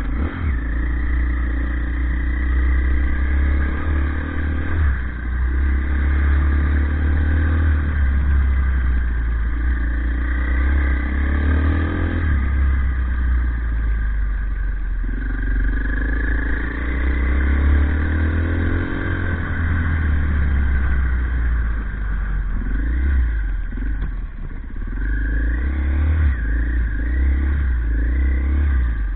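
Off-road motorcycle engine running under way, its revs rising and falling as the rider works the throttle and gears, with a run of quick, short rev changes near the end.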